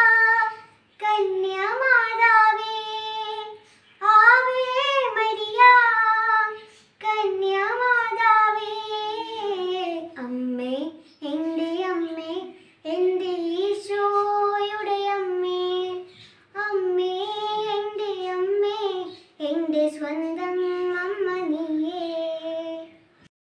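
A young girl singing solo and unaccompanied, in sustained phrases of about three seconds with short pauses for breath between them.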